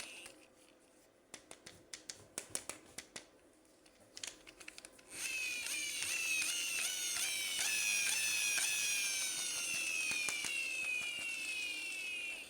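Sharp clicks of a plastic toy being handled, then about five seconds in a battery-powered toy's electronic sound effect starts: a rapid repeating chirping that slowly drops in pitch.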